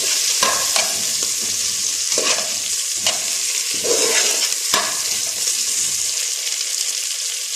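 Cauliflower and chopped onion sizzling as they fry in butter and oil in a pot: a steady hiss, with a spoon stirring and scraping through them about six times at irregular intervals.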